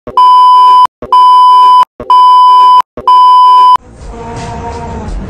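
Test-card tone over colour bars: a loud, steady, single-pitched beep sounded four times, about once a second. Music starts near the end.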